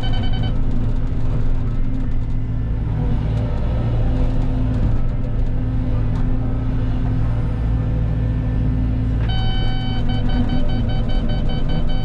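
Cat 313 excavator's diesel engine running steadily under digging load. A steady electronic tone sounds briefly at the start and comes on again about nine seconds in, holding on.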